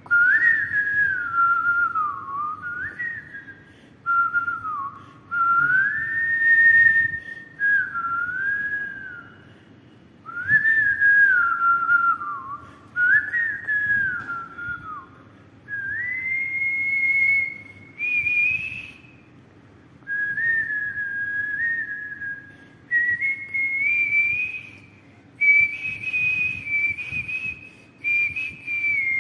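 A man whistling a tune through pursed lips, in phrases of two to three seconds separated by short breaths; the later phrases sit higher in pitch than the first ones.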